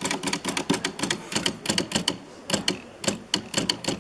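Remington Quiet-Riter manual typewriter being typed on: a rapid run of key strikes, several a second, with a few brief pauses.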